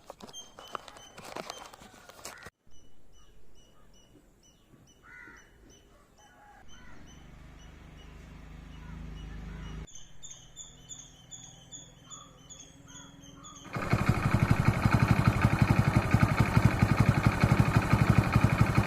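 Quiet stretch of clicks and repeated high chirps, then a loud, fast, steady rattle that starts about five seconds before the end: a motorcycle engine running with timing chain noise.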